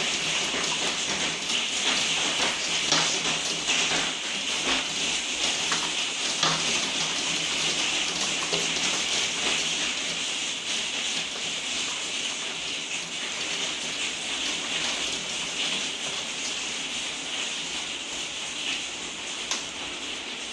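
Hailstorm with heavy rain pelting window glass and roofs: a dense, steady patter with many sharp individual ticks. It eases gradually over the span.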